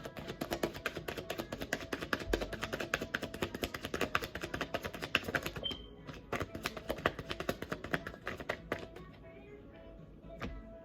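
Tarot cards being shuffled by hand: a fast run of sharp card clicks, several a second, that breaks off briefly a little past halfway and dies away near the end. Soft background music plays under it.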